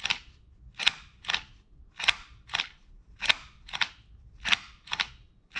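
Mini handheld stapler-style chain-stitch sewing machine punching stitches through paper. It gives sharp clicks in pairs, a pair roughly every 1.2 seconds, as the stapler-like mechanism is pressed slowly, one stitch at a time.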